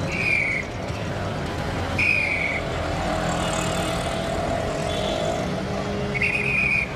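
A traffic policeman's whistle blown in three short blasts, each about half a second with a slightly falling pitch, over steady road traffic. A longer, lower tone sounds in the middle.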